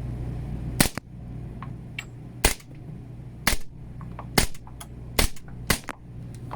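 Six suppressed .40-calibre gunshots from a Brügger & Thomet APC40 carbine fitted with a Resolute monocore suppressor, fired at uneven intervals of about a second. They are fired in an enclosed space.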